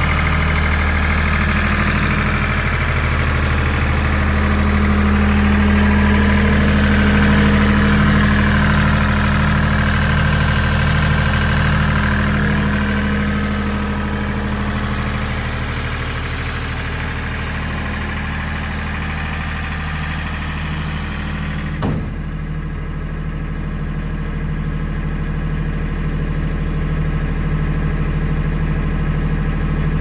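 Perkins diesel engine of a Mosa GE 35 PSX super-silenced generator set running steadily at constant speed with its canopy lid open. About three-quarters of the way through, a single sharp knock comes as the canopy lid is shut, after which the engine sounds more muffled.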